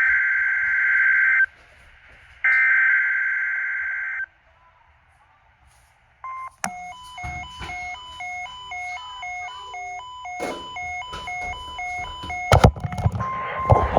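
EAS SAME digital header data bursts, the harsh buzzing data screech, sent twice about a second apart, each about a second and a half long. After a short silence comes a stepped electronic beeping pattern of alternating tones lasting about six seconds. Near the end there are clicks and a steady single tone.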